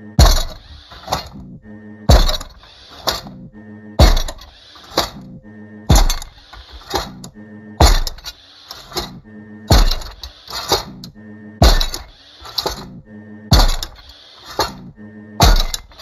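Sound-effect footsteps of a giant, junky robot walking slowly: a heavy metallic thud about every two seconds, each followed by a lighter clank and metal clinks, over a steady mechanical hum.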